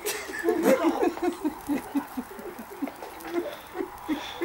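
A person's voice making a quick run of short, repeated sounds, about four or five a second, loudest about a second in.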